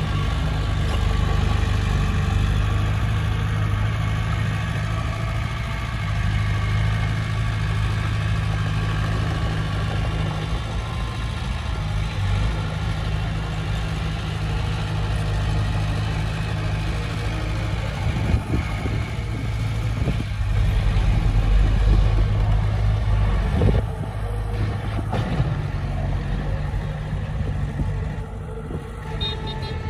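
Heavy diesel earthmoving machinery running steadily under work, with a few clanks over the middle stretch and the engine note dropping a few seconds before the end.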